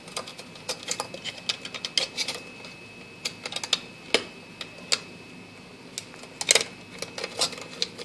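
Metal meter sealing ring clicking and scraping against the meter's rim and socket as it is worked into place: scattered irregular clicks, with a louder cluster about six and a half seconds in.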